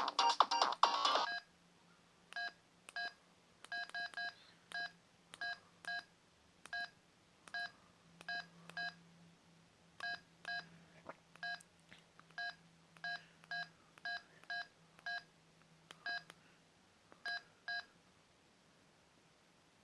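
LG C1300 cell phone's keypad tones: short, identical two-tone beeps, about two dozen at uneven spacing, as its keys are pressed. A ringtone playing at the start cuts off about a second in.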